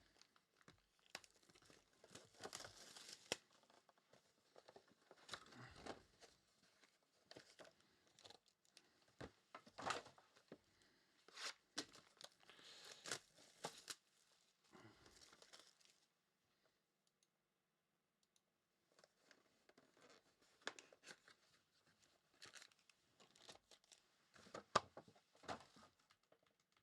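Trading card packaging being torn and crinkled open by hand, in irregular rustling, tearing bursts with a pause of a few seconds about two-thirds of the way through.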